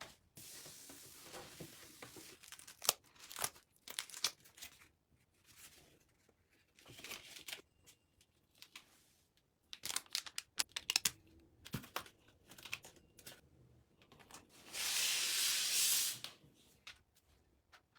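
Close-up handling of packaging: plastic and paper rustling and being torn, with scattered light clicks and taps. Near the end a steady hiss lasts about a second and a half and is the loudest sound.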